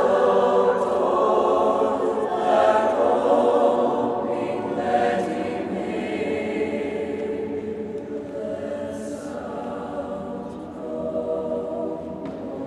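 Mixed choir singing sustained chords in a large reverberant cathedral, starting loud, gradually softening, then swelling a little near the end.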